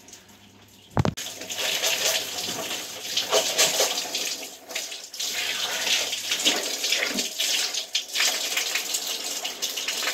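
A sharp knock about a second in, then shower water running steadily and splashing.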